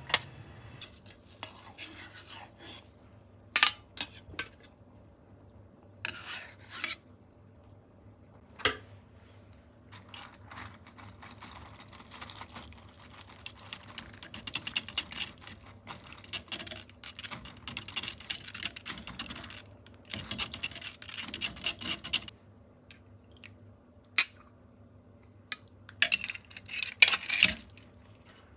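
Metal kitchen utensils clinking and scraping in a saucepan: scattered sharp clinks, with longer stretches of scraping in the middle and near the end as a spoon rubs miso through a mesh miso strainer held in the soup.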